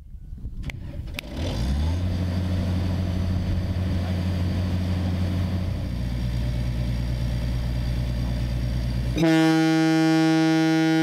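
A portable engine-driven air compressor runs with a steady low hum. About nine seconds in, a Kockums Tyfon MKT 150/165 ship horn starts sounding and holds one loud, steady, deep note that drowns the compressor.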